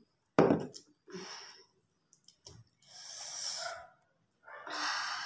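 A woman's throat and breath right after a swallow of a cold dark soft drink: one short, loud throaty sound about half a second in, then three long breathy exhales.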